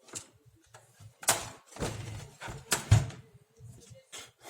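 Plastic side cover of a Canon LBP-2900 laser printer being pried off: a series of sharp clicks and knocks as its clips let go, the loudest about three seconds in.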